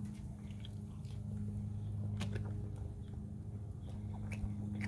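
A person biting into and chewing a grill-toasted corn tortilla, with a few short crisp clicks from the bites, over a steady low hum.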